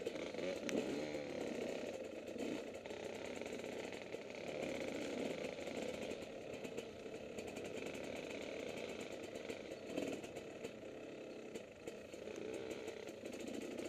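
Motocross bike engine running at low, varying revs while riding over a rough, grassy trail, with frequent light clicks and rattles.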